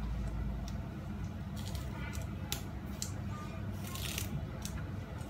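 Steady low hum of a lit gas burner under a covered wok of simmering spinach, with scattered light clicks and knocks as a cloth wipes the kitchen counter.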